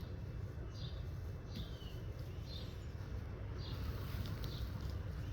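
A bird chirping over and over, short high calls about once a second, some sliding down in pitch, over a steady low rumble.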